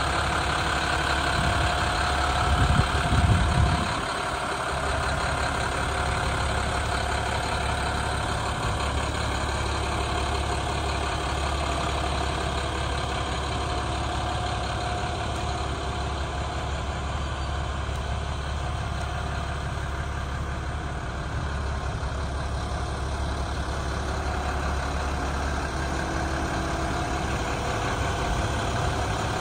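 International 7300's MaxxForce DT turbo diesel idling steadily, briefly louder about three seconds in.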